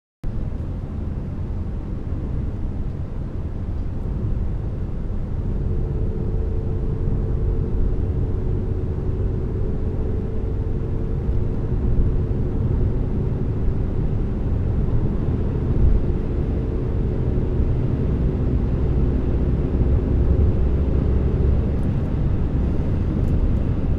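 Peugeot 508's 2.0 BlueHDi four-cylinder turbodiesel accelerating hard, its engine note rising slowly under a heavy low rumble of road and wind noise. The sound cuts in abruptly.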